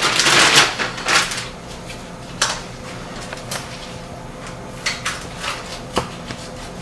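Plastic wrapping on a raw pork roast crinkling as it is pulled open, loudest in the first second or so. A few small taps and knocks on the counter follow.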